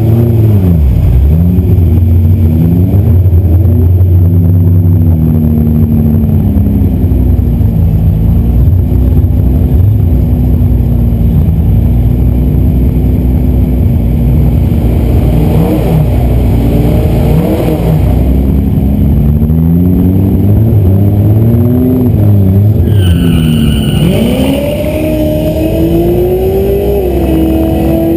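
1997 Toyota Supra's 3.0-litre single-turbo inline-six idling loud and lumpy, blipped up and down in short revs several times. Near the end a higher whine joins and the engine note climbs steadily.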